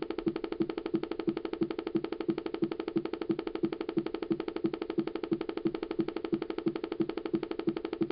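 A faulty 2007 iMac making a steady pitched pulsing noise, about four pulses a second, that does not change. It is an unexplained fault that began after the machine woke from sleep.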